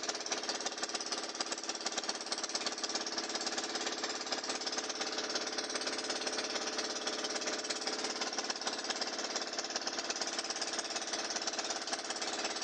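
Outrigger boat's engine running steadily under way, a fast, even chugging with a hum.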